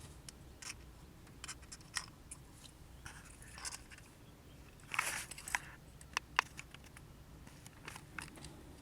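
Small parts of a steering-wheel quick-release hub being handled: scattered light clicks and scrapes. A short rasping scrape comes about five seconds in, with two sharp clicks just after it.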